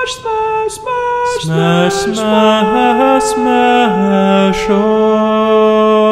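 Segment jingle of layered sung voices, without instruments. It opens with short notes, then the voices join in a chord that shifts a few times and is held steady from about five seconds in.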